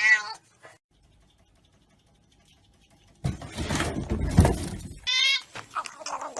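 A cat's long wavering yowl cuts off just after the start. After about three seconds of near silence comes a loud, rough, unpitched noise lasting about two seconds, then a brief high-pitched wavering cry.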